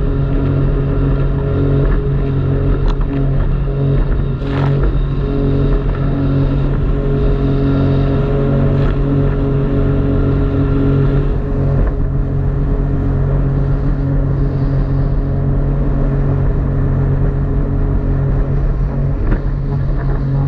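Jet ski engine running at a steady, even speed.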